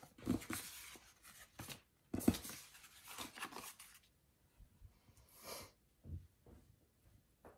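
Paper sticker sheets rustling and sliding over a desk as they are shuffled and picked up, with a sharper knock about two seconds in. Quieter after about four seconds, with one brief rustle and a soft thump.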